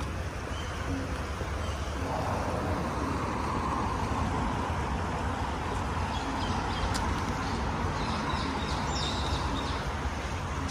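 Steady road traffic, with a vehicle passing that swells about two seconds in and fades near the end, over a low rumble.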